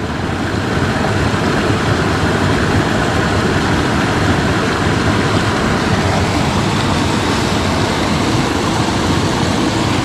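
Mountain stream rushing over rocks: a steady, loud roar of flowing water that swells slightly in the first second and then holds level.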